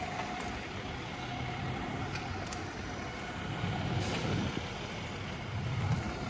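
Fire engine's diesel engine running steadily: a low rumble with a faint steady whine that fades out partway through.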